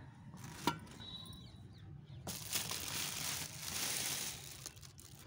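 A thin plastic bag rustling and crinkling as it is handled, with a single light click just under a second in before the rustling starts.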